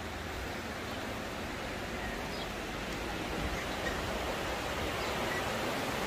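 Steady outdoor rushing noise, growing slightly louder toward the end, with a few faint short high chirps.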